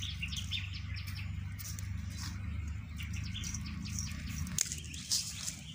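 Small birds chirping in quick, repeated short notes, over a steady low hum.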